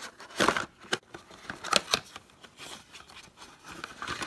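Cardboard packaging being handled: the black cardboard insert rubs and scrapes against the box as it is pulled out, in a series of short rustles.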